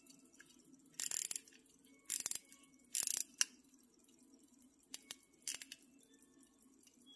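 Crown of an Illinois Springfield 17-jewel pocket watch being wound: short bursts of crackly ratchet clicking, one about every second three times, a single sharper click, then a few shorter bursts near the end.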